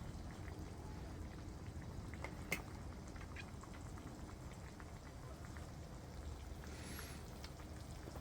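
A pot of hot pot (nabe) simmering, with soft bubbling and scattered small ticks; one sharper click about two and a half seconds in.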